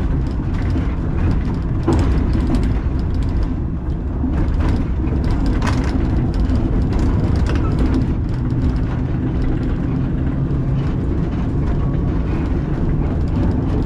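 Two-axle museum tram running along the track, heard from the driver's cab: a steady low rumble from the wheels and motors, with a few short clicks and knocks.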